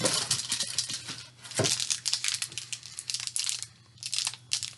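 Plastic snack packaging crinkling as it is handled, a dense crackle lasting about three and a half seconds, then a shorter spell near the end after a brief pause.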